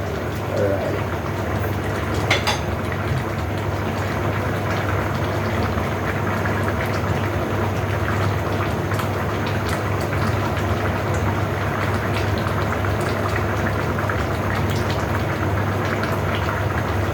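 A coconut-milk vegetable stew of squash and string beans simmering and bubbling steadily in the pan as it reduces, over a low steady hum, with a single sharp click a couple of seconds in.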